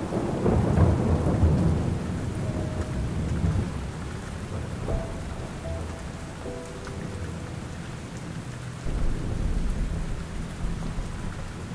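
Thunderstorm ambience: steady rain with rolling thunder, one rumble at the start and another about nine seconds in. A few faint held tones sound in between.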